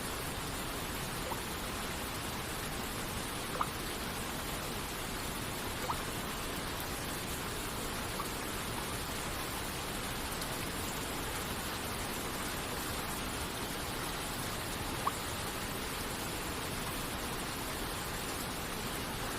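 Steady rushing of rain and falling water, with a few single droplets plinking now and then.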